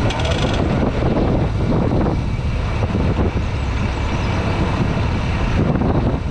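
Motorcycle riding along the road, heard from on the bike: a steady, loud rumble of engine and road noise.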